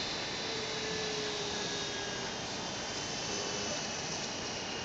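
SkyWest CRJ200's General Electric CF34 turbofan engines running after landing: a steady jet hiss with a faint high whine that slowly falls in pitch.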